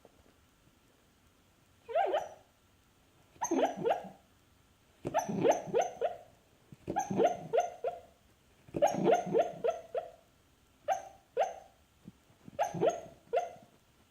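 A dog barking in its sleep: short woofs and yips in quick runs of two to five, a new run every second or two, each call dropping in pitch.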